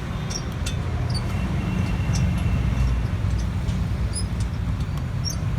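Steady low rumble of road traffic, with scattered light clicks over it.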